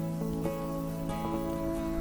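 Background music: gentle plucked acoustic guitar with sustained notes.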